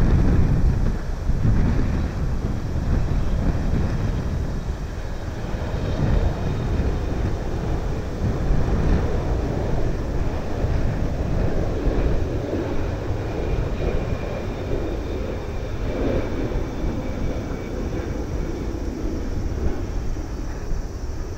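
Jet engines of a twin-engine Boeing airliner on landing approach: a steady low rumble with a faint high whine, under gusts of wind buffeting the microphone.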